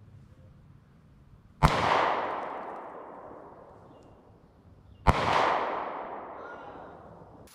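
Two handgun shots about three and a half seconds apart, each followed by a long echo rolling off through the woods and fading over about two seconds.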